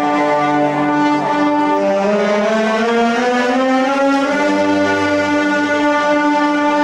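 A marching band of brass and clarinets playing a slow funeral march in long held chords, the lower voices gliding slowly upward about two to four seconds in.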